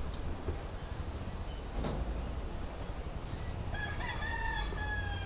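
A rooster crowing once near the end: a single pitched call of about a second and a half, over steady low background noise.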